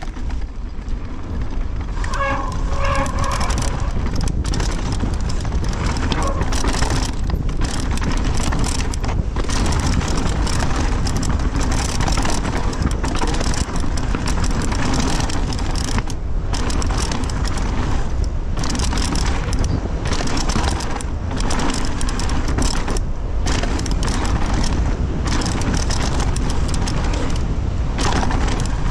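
Canyon Torque mountain bike descending a dirt flow trail: continuous tyre noise on dirt and loose stones with chain and frame rattle over the bumps, and heavy wind rumble on the helmet camera's microphone.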